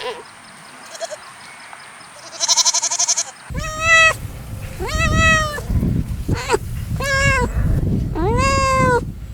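A goat bleating over and over. A short quavering bleat comes about two and a half seconds in, then five loud rising-and-falling bleats from about three and a half seconds on, with a low rumble behind them.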